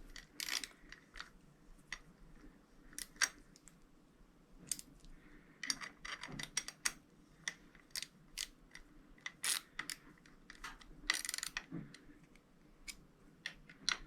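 Irregular small clicks and light metal clinks of a hand tool working the Torx screws out of a motorcycle's handlebar switch housing, with a brief scraping rustle about two-thirds of the way through.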